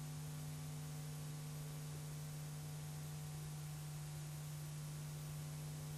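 A faint, steady low hum with a light hiss under it, with no other sound.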